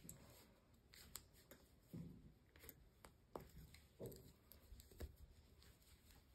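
Near silence with faint, irregular clicks and soft knocks of 8 mm wooden circular knitting needles as stitches are worked.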